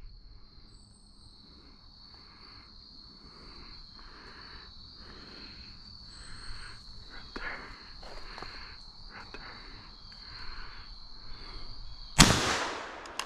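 A single-shot .410 shotgun fires once near the end: a sharp, loud report with a short decaying tail. Before it there are soft, scattered rustles under a steady high-pitched whine.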